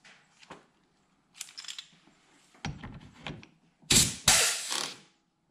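Pneumatic pop-rivet gun setting a rivet through a plastic side skirt: a few light clicks, then from about two and a half seconds in short bursts of the tool cycling, the loudest two near the end.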